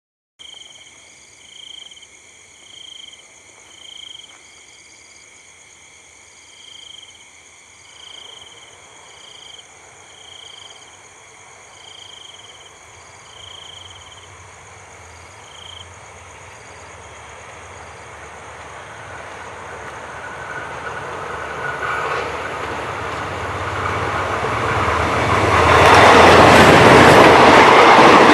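Hitachi diesel locomotive hauling an express passenger train, approaching and growing steadily louder until it passes close by near the end, with the wheels clattering over the rail joints. For the first half, a high pulsing tone repeats about once a second.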